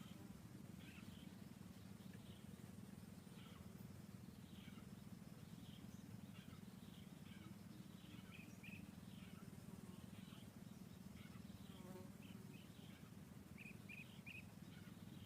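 Near silence: a low steady hum with faint, scattered high-pitched animal chirps, including a quick run of three near the end.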